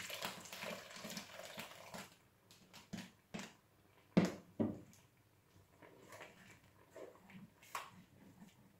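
Hot water poured from a jug into a pan of frying onion and mushrooms, a steady hiss and splash for about two seconds. After that come a few short, separate sounds, two of them falling in pitch about four seconds in.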